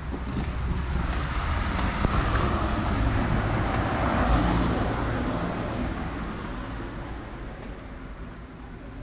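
A road vehicle passing by: its engine and tyre noise swell to a peak about four seconds in, then fade away.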